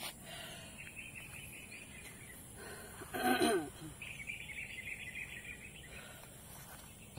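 Outdoor ambience with birds trilling in two bouts over a steady high insect hiss. A louder, half-second call that falls in pitch comes about three seconds in.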